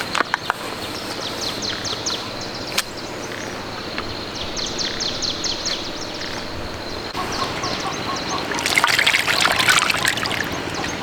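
Small birds chirping in quick runs of short, high, falling notes over a faint steady high whine, with a louder, noisier stretch of a second or so near the end.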